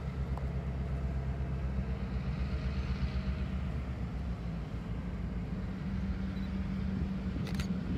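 Diesel locomotive engine running with a steady low rumble as the train approaches.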